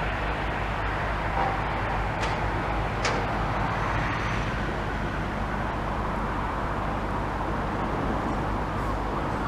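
Steady rumble of town traffic and engines, with a couple of faint clicks about two and three seconds in.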